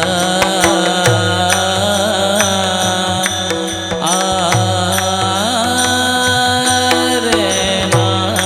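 Devotional Marathi kirtan music: a singer holds long notes that glide and bend, over a steady accompaniment with drum strokes and ringing cymbals keeping the beat.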